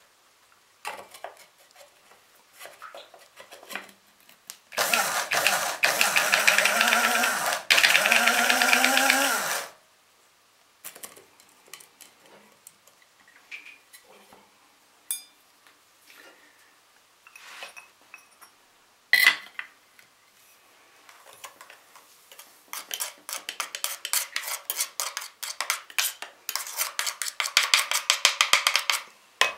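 Electric blade coffee grinder pulse-grinding eggshells to powder: the motor runs in two short bursts of about three and two seconds, spinning up at the start of each. Scattered clicks and one sharp knock follow, then near the end a run of rapid knocking as the grinder is tapped against the ceramic mortar to empty the powder out.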